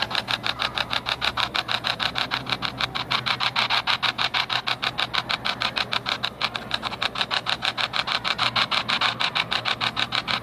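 Ghost-hunting spirit box app on a phone sweeping through radio frequencies: a steady hiss of static chopped into rapid, even pulses, many a second, with a low hum beneath. This is the sweeping static in which ghost hunters listen for spirit voices.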